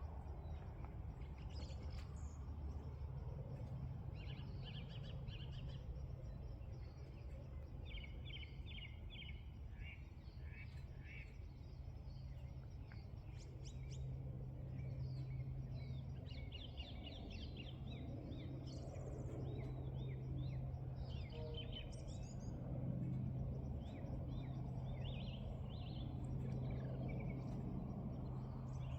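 Many small birds chirping and twittering in short runs of quick notes, over a steady low hum.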